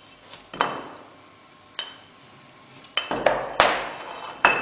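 Steel bars knocking together as they are pushed through an induction heating coil: about five sharp metallic clanks, each with a short ring, the later ones closer together and the loudest.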